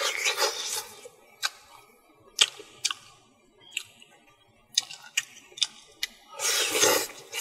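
Close-up eating sounds of a man eating fish with his fingers: wet lip smacks and sucking, with scattered sharp mouth clicks, a burst at the start as he sucks his fingers and a longer, louder smacking burst as he bites into a piece of fish near the end.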